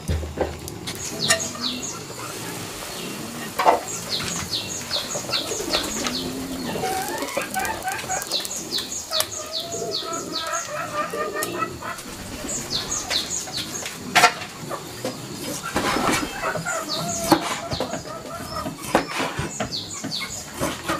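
Birds chirping in repeated runs of short, high, falling notes, with lower chicken-like clucking calls among them. A few sharp knocks are spread through.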